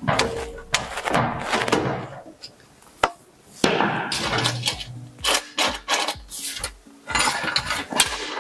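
Irregular metal clicks, knocks and scraping of pliers pressing a metal spring clip onto a cabinet door lock, and of the sheet-metal door being handled, until the clip sits.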